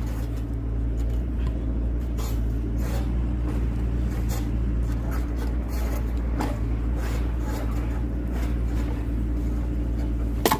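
An engine runs steadily with a low hum, under a few faint knocks. A sharp crack comes near the end.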